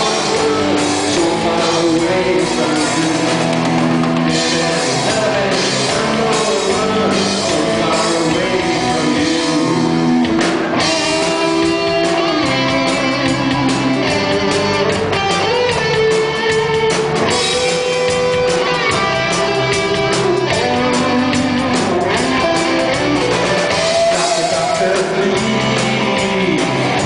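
Live rock band playing: electric guitars, electric bass and a drum kit, loud and continuous, with a wavering lead line coming forward about eleven seconds in.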